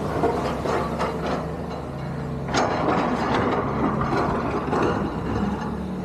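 Excavator engine running with a steady low hum, under irregular clanks and knocks. The loudest is a sharp crack about two and a half seconds in.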